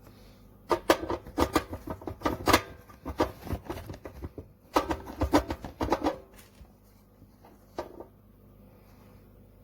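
Rapid clicks and knocks of objects being handled, in two bursts of a few seconds each, followed by a single knock.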